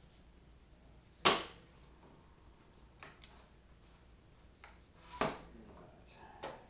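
A few separate sharp knocks and clunks of a PVC pipe and miter saw parts being handled, the loudest about a second in and another about five seconds in. The saw's motor is not running.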